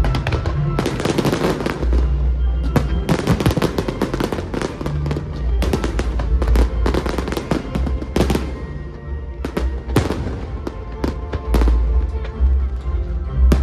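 Fireworks bursting and crackling in quick clusters, some single sharp reports, over music with a deep bass line.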